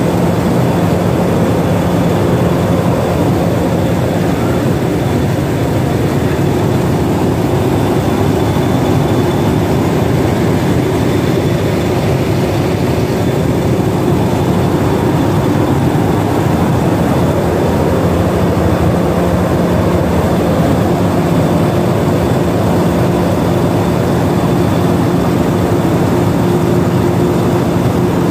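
Class 50 diesel locomotive 50008 'Hanson & Hall' with its English Electric 16CSVT V16 diesel engine running steadily at idle, heard close beside the engine-room grilles.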